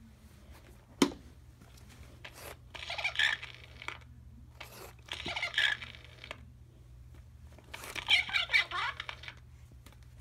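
Talking doll giving three short voice phrases in a thin, tinny voice from its built-in speaker, about three, five and eight seconds in. A sharp click about a second in.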